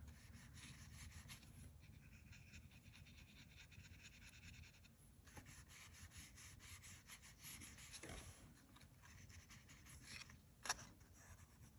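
Near silence with faint, soft strokes of a wet watercolour brush on paper, and one short sharp click near the end.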